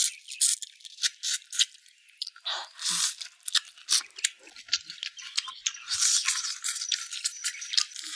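Wet chewing and gnawing on soft braised pig trotters: irregular smacks, clicks and crunches.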